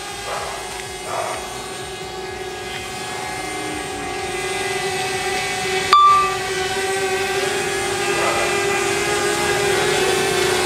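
DJI Mavic Mini quadcopter hovering just after an automatic takeoff: a steady, even propeller whine that grows slowly louder. A sharp click with a brief high beep comes about six seconds in.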